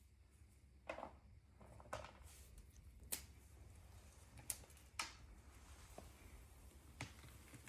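A handful of faint, sharp clicks and light knocks, about six spread irregularly, over a steady low hum.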